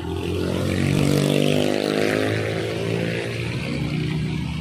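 A motor vehicle's engine running close by at a steady pitch, swelling to its loudest about a second in and then easing off slowly, before cutting off abruptly.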